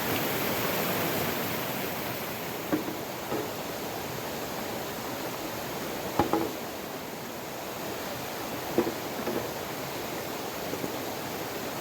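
Steady rush of flowing river water, slightly louder in the first couple of seconds. A few soft knocks, some in pairs, come at irregular intervals over it.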